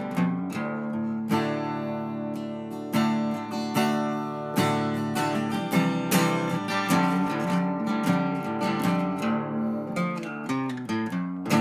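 Background music: acoustic guitar playing plucked notes and strummed chords.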